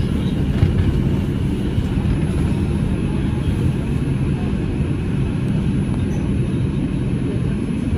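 Bombardier R142 subway car running on the line, heard from inside the car: a steady low rumble with a faint high whine above it.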